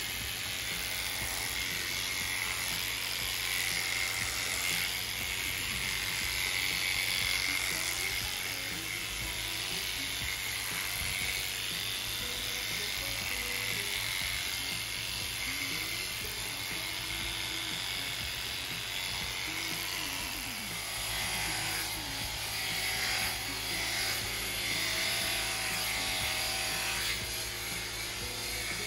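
Corded electric horse clippers buzzing steadily as they cut through a horse's coat, with faint background music under them.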